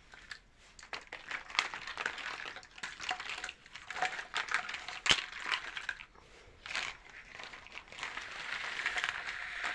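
Packaging being crinkled and handled during an unboxing: irregular crackles and clicks, with a longer continuous rustle near the end.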